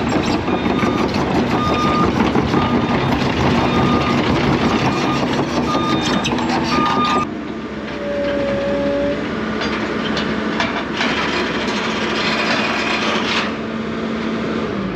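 A vehicle running, with short repeated electronic beeps like a reversing alarm during the first half. The sound changes abruptly at about seven seconds to a steadier engine drone.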